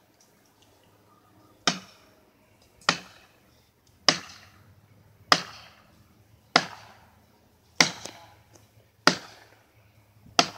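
Axe blows striking the base of a dead tree trunk, eight sharp hits at a steady pace of roughly one every 1.2 seconds, each with a short ringing tail.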